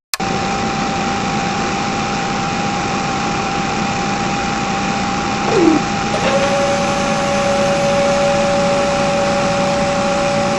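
Small motors of a homemade mini borewell drilling rig running steadily with a whine. About halfway through, a pitch drops briefly and then a second, lower steady whine joins in.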